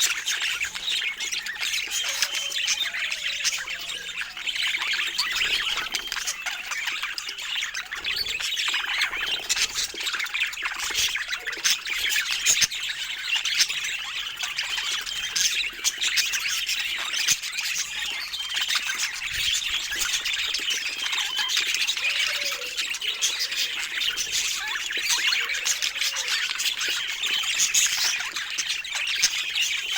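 A flock of budgerigars chattering without a break, a dense mix of quick chirps, warbles and squawks.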